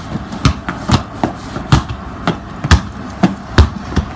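A steady series of sharp thuds, about two a second.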